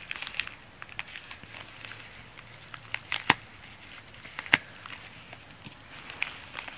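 Scissors cutting through a plastic bubble mailer: crinkling plastic with scattered sharp snips and crackles, the two loudest about a second apart midway through. Near the end the envelope is handled, crinkling.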